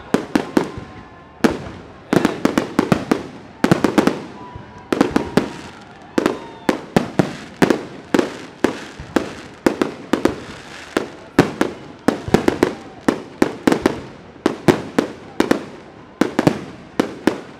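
Fireworks going off in rapid, irregular volleys of sharp bangs, several a second, with short gaps between the clusters.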